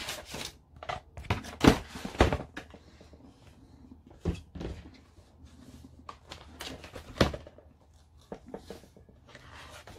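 Handling noises on a tabletop: several sharp knocks and taps as resin model parts are put down and a large book is opened and laid flat, with paper rustling between.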